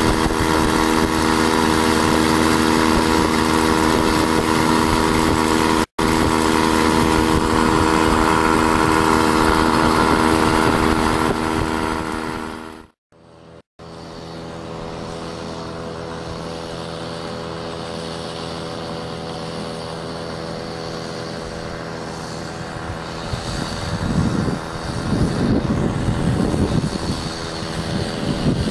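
A 32cc two-stroke Craftsman string-trimmer engine, converted into an outboard motor, drives a canoe at a steady high speed and is heard up close. The sound drops out briefly about 13 seconds in. After that the engine is heard fainter and running steadily, and its pitch wavers in the last few seconds.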